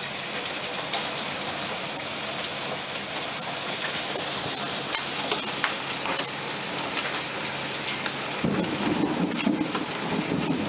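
Heavy rain and hail coming down hard: a steady hiss of rain with many sharp ticks of hailstones striking. A lower rumble joins near the end.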